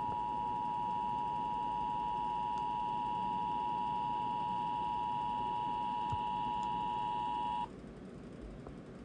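Emergency Alert System attention signal: a steady two-tone alarm held for about eight seconds, then cutting off abruptly.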